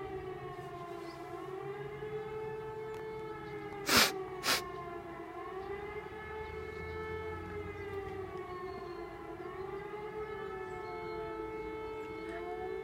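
Civil defence sirens sounding in a siren test: several overlapping tones, one steady and others slowly wavering up and down in pitch. Two sharp knocks about four seconds in.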